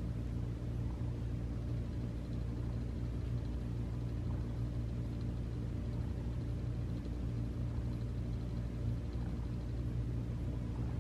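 Domestic cat purring steadily while being stroked: a low, continuous rumble.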